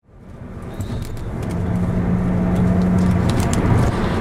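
Road noise inside a moving car's cabin: a steady rumble of engine and tyres that fades in over the first second, with a steady low hum through the middle.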